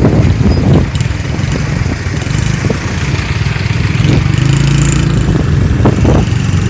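Road traffic: motor vehicle engines running and idling, with a continuous low rumble and a few brief louder surges.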